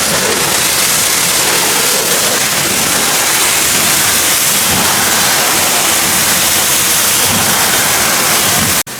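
Pressure washer's high-pressure water jet spraying steadily onto a tractor with a loud, even hiss, cut off abruptly near the end.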